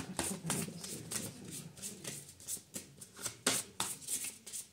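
Oracle cards being shuffled by hand: a quick, irregular run of soft card slaps and flicks.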